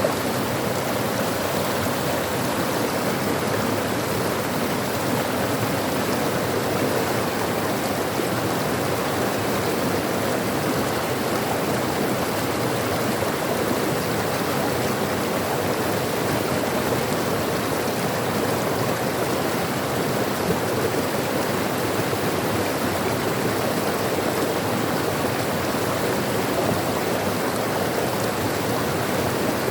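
Stream of flowing water rushing steadily.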